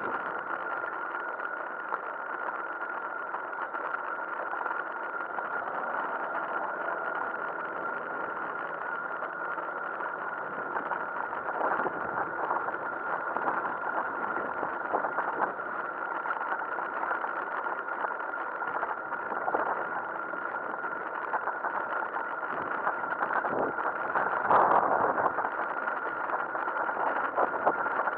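Riding noise from a bicycle on a brick-paved path: a steady high whine over a rattling rumble, with many small knocks and a louder jolt near the end.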